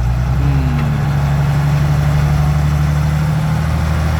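Heavy diesel engine of a dump truck or excavator running steadily, its pitch rising slightly about half a second in and then holding.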